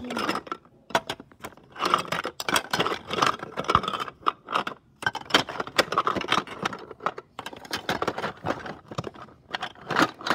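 Toy dishes, cups and plastic play food clattering and scraping against each other as a hand rummages through a plastic storage bin, a dense run of small clicks and knocks with brief pauses.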